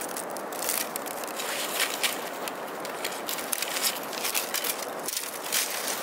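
Split bamboo strips clicking and crackling as they are bent and worked into a woven basket, an irregular run of small sharp clicks.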